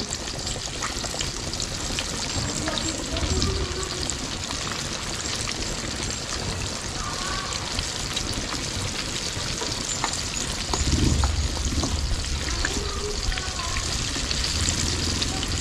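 Chicken pieces deep-frying in a wok of hot oil: a steady bubbling sizzle with fine, continuous crackling.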